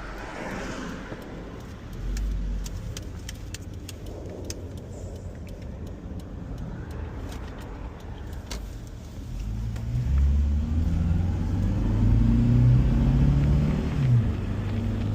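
Car engine and traffic noise: a low steady rumble while waiting, growing louder from about ten seconds in as the engine picks up and the vehicle gets moving.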